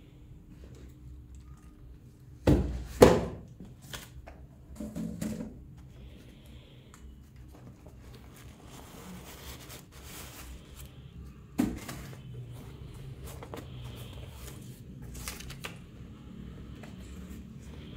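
Handling noises from unboxing a pair of sneakers: two loud thuds about two and a half and three seconds in, a softer knock around five seconds and a sharp knock near eleven and a half seconds, with light rustling of the shoes and packaging between.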